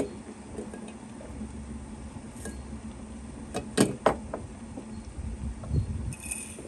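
Lid of a glass teapot being handled and set in place: a few sharp glassy clicks, the loudest a little past halfway, over a steady low hum.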